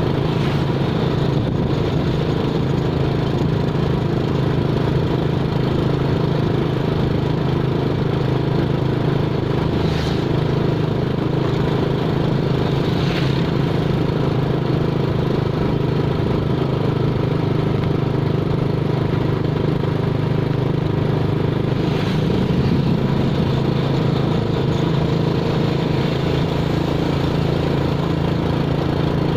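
An engine running steadily at an even pitch, with a few brief higher sounds over it about a third of the way in and again past the middle.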